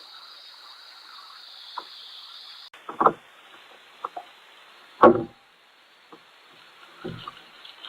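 Dull knocks and thumps on a kayak, several separate hits with the loudest about five seconds in, muffled by an action camera's waterproof case.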